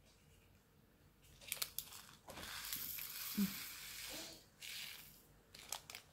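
Thin plastic bag of small resin diamond-painting drills being handled and crinkled, the drills rattling inside it. There are a few sharp clicks, and a denser rustle in the middle lasts about two seconds.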